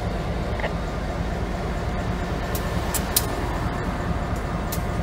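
EMD GP50 diesel-electric locomotive's 16-cylinder two-stroke engine running steadily as it rolls slowly past, with a few sharp, high clicks from the moving train.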